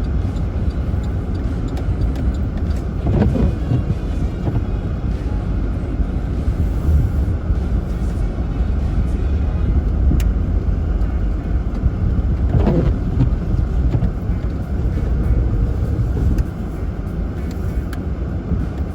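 Steady low rumble of a vehicle in motion, a little quieter near the end.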